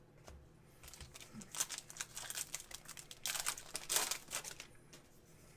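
Trading cards and their packaging being handled, giving a run of quick crinkling rustles that builds about a second and a half in and stops about four seconds in.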